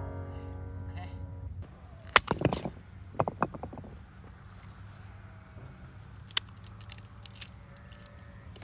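Wooden beam struck with a heavy stone to split it for firewood: a sharp crack about two seconds in with quick splintering after it, then a second short run of cracks a second later as the wood breaks apart.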